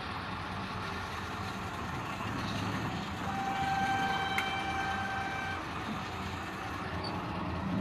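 Ashok Leyland tipper truck's diesel engine running steadily, heard inside the cab as the truck reverses. A horn sounds one steady note for about two and a half seconds in the middle.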